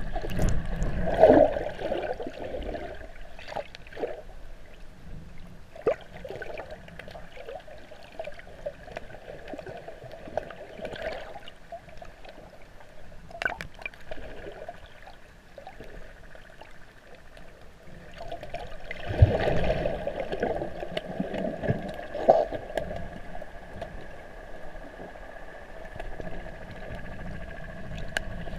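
Muffled underwater sound heard through a waterproof camera housing: water gurgling and sloshing, with scattered sharp clicks and a faint steady tone throughout, growing louder for a few seconds about two thirds of the way through.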